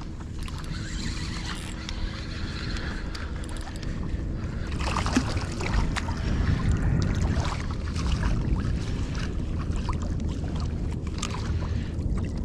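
Wind buffeting the microphone and water sloshing around a fishing kayak: a steady low rumble with scattered small knocks and clicks.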